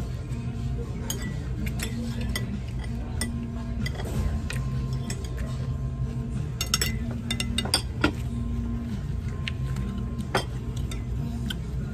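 Metal forks clinking and scraping on ceramic plates, sharp clicks scattered throughout, with a quick flurry about seven seconds in, over steady background music.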